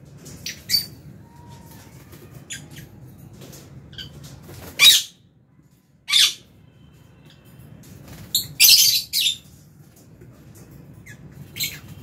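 Lovebirds giving short, harsh, high-pitched squawks: single calls scattered through, and a quick run of several about eight to nine seconds in, over a faint low steady hum.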